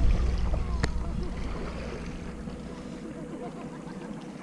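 Low rumble of wind and handling on the body-worn camera's microphone, fading out over the first second and a half, with one sharp click about a second in. Faint water lapping at the shoreline follows.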